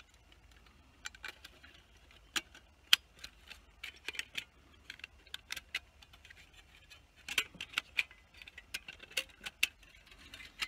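Thin titanium panels of an Ember Lit Fire Ant firebox clicking and clinking as the last panel is worked into the interlocking notches: irregular sharp metallic ticks, with a few louder clicks.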